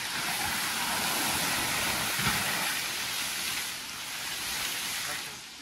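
Large plastic tarp rustling and crinkling as it is dragged over a gazebo roof: a steady, noisy hiss that peaks about two seconds in and eases off near the end.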